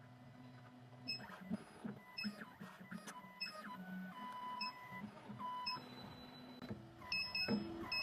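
CNC key cutting machine's stepper motors moving the probe to read the original key's cuts: a series of short whining tones that shift pitch as each move starts and stops, with clicks between them, louder near the end.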